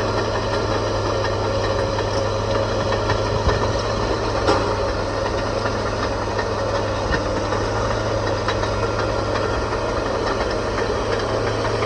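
Bulldozer's diesel engine running steadily at a constant speed, with a few faint clicks.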